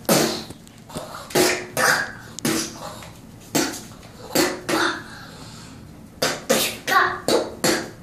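A small boy making kung-fu fight sound effects with his mouth: about a dozen short, sharp vocal bursts and puffs, coming in quick clusters.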